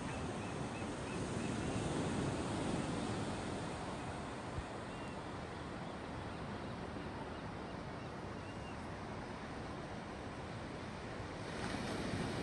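Ocean surf washing on the beach, a steady rush that swells a couple of seconds in and again near the end, with wind on the microphone.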